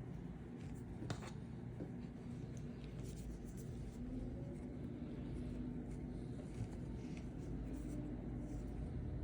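Faint scratching and rustling of hand work on a rug's edge, with a few small clicks, over a steady low hum.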